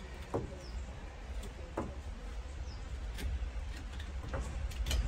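Hoof knife paring the sole of a donkey's hoof: a few short, separate scraping cuts, with a low steady rumble underneath and a couple of faint bird chirps.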